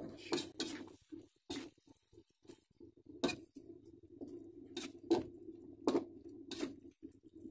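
Long-handled metal spoon scraping and clinking against an aluminium wok while greens and tempe are stirred through a little simmering broth, with liquid sloshing. About eight sharp scrapes come at uneven intervals over a steady low hum.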